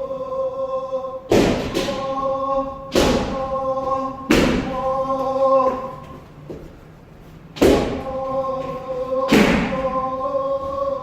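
Kendo wrist-strike (kote) drill: bamboo shinai striking and feet stamping, about five sharp impacts, each over a long held kiai shout from the practitioners. There is a short lull between strikes just past the middle.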